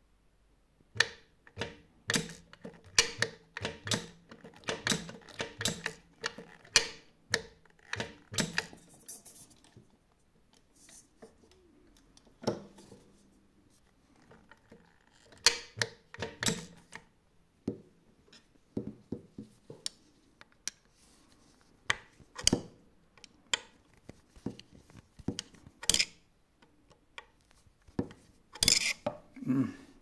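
Metal parts of a Textima industrial sewing machine's presser-foot lifter and latch clicking and clacking as the mechanism is worked by hand. The clicks come in irregular clusters, busiest in the first ten seconds, then scattered with a last quick flurry near the end.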